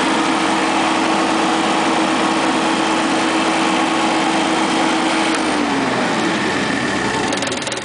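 Generator set engine running steadily, then about five seconds in its pitch falls as it winds down and stops, with a brief rattle as it comes to rest near the end.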